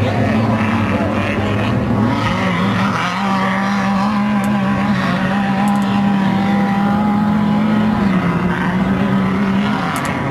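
Off-road race car engines running, a steady loud drone whose pitch shifts a few times.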